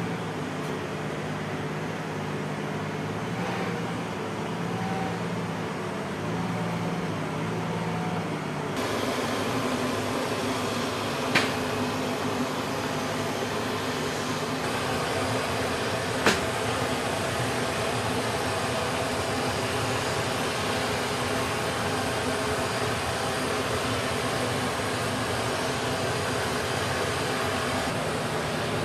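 Steady machinery noise of a cargo loader working at a C-17's cargo ramp on the flight line: an engine hum at first, giving way about nine seconds in to a broader steady noise. Two sharp knocks stand out, about eleven and sixteen seconds in.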